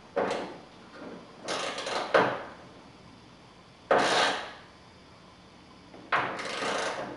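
Socket ratchet with an extension clicking in four short strokes as a bracket bolt is tightened.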